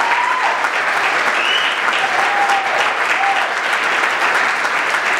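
A crowd applauding steadily, greeting a speaker who has just been introduced.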